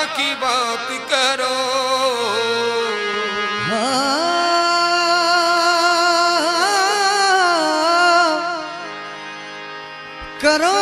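Qawwali singers drawing out long, ornamented sung phrases over a harmonium. A voice glides up about four seconds in and holds a high note with wavering ornaments, then eases off and softens before a loud new phrase comes in at the very end.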